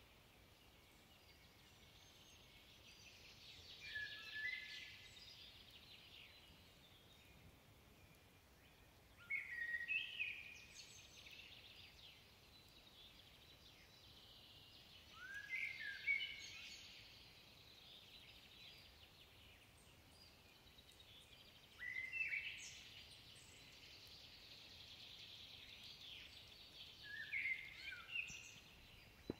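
Common blackbird singing in the distance: five separate fluted phrases about six seconds apart, each with a thin, higher twitter.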